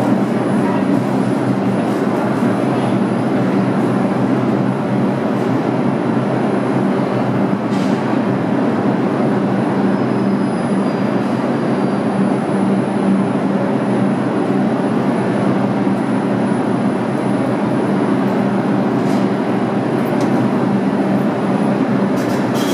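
New York City IRT subway train on the express track at a station, running with a steady, unchanging noise and a low steady hum.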